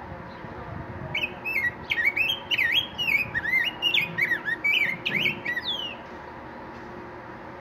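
A caged grosbeak singing one continuous warbled song of quick whistled notes that slide up and down. It starts about a second in and stops after about five seconds.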